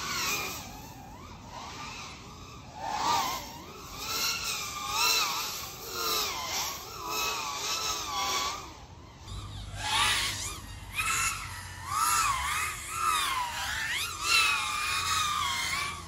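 FPV racing quadcopter's motors and propellers whining, the pitch rising and falling with the throttle in repeated surges about once a second.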